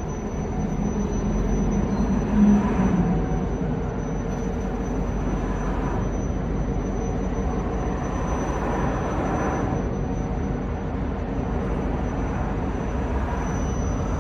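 Diesel freight train running, a steady low rumble, with a brief louder low hum about two and a half seconds in.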